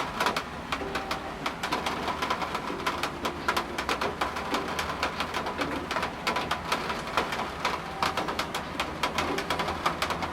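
Rain falling, with many separate drops striking a hard surface close by in dense, irregular hits.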